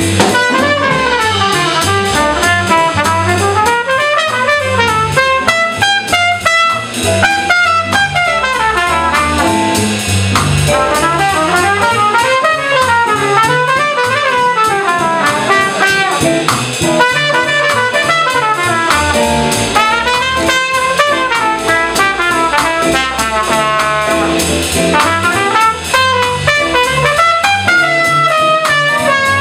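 Jazz quartet playing in swing time: a trumpet solos in quick runs that climb and fall, over walking upright bass, drum kit and electric keyboard.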